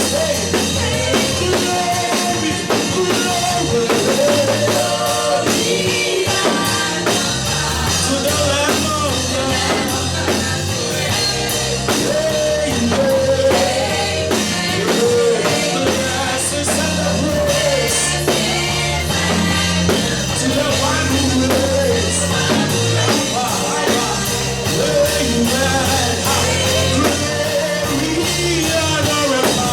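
Gospel worship song played by a band with drums and bass, with singing.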